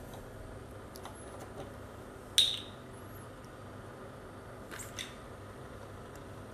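Light clicks and taps of objects being handled on a kitchen counter, the loudest a single sharp click about two and a half seconds in, with a couple more near the five-second mark, over a steady faint hiss.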